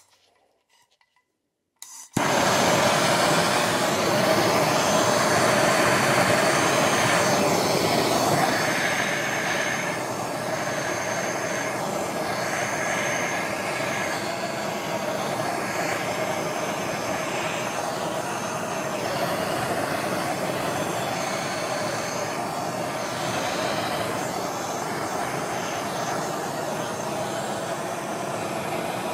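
Handheld gas blowtorch lighting up suddenly about two seconds in, then burning with a steady, loud rushing hiss of flame, easing slightly after about eight seconds.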